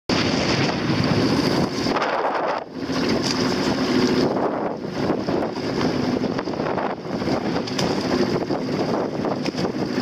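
Strong wind rushing over the microphone, its level rising and falling with the gusts, over the wash of choppy sea waves.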